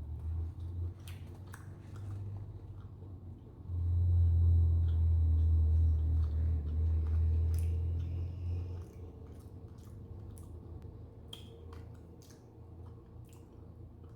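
Close-miked biting and chewing of a sausage: wet, squishy mouth sounds with small clicks. A loud low rumble runs from about four to nine seconds in.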